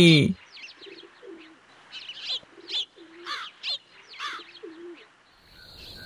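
Birds calling: a run of short, high, arching chirps mixed with a few short low notes. Near the end a steady, high cricket chirring begins.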